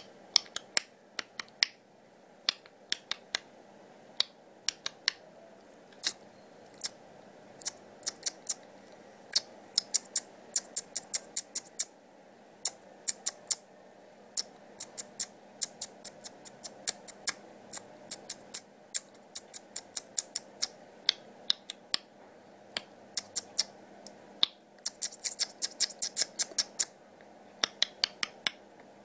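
Irregular sharp clicks, some single and some in quick runs, with a dense flurry near the end, over a faint steady hum.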